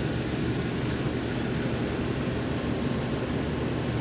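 Ford 7.3L "Godzilla" V8 idling, a steady low exhaust drone with no metallic rattle from the heat shield: the rattle is cured. The motorhome's rooftop air conditioners run alongside it.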